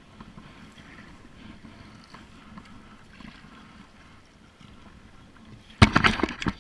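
Paddle strokes of a kayak moving over calm water: faint splashing and dripping. Near the end comes a loud burst of several knocks and rustling against the plastic kayak.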